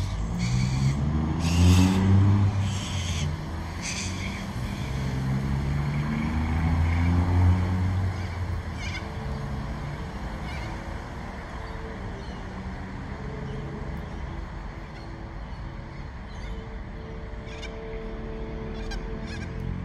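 A vehicle engine passing, its pitch rising twice in the first eight seconds, then a fainter steady hum.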